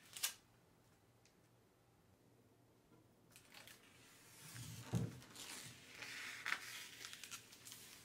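A single sharp click, then after a quiet stretch faint, irregular rustling and crinkling handling noises, with a knock about five seconds in.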